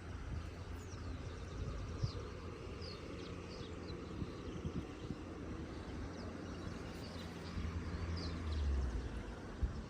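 Wind buffeting the microphone as a steady low rumble that swells in a gust near the end, with several short, high, falling bird chirps over it.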